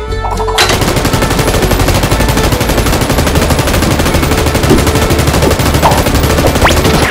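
A long string of firecrackers going off in a rapid, continuous crackle of bangs, starting about half a second in, over background music. A brief rising whistle comes near the end.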